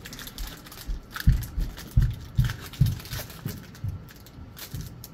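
Foil booster-pack wrapper crinkling and tearing as it is opened by hand, with a run of dull low thumps, two or three a second.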